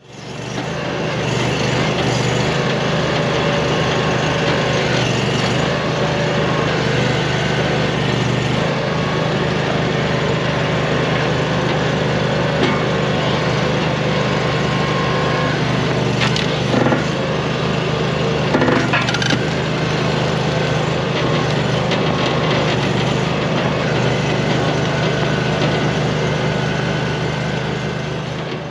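Small gas engine of a log splitter running steadily while logs are split, with a couple of sharp wood cracks a little past the middle.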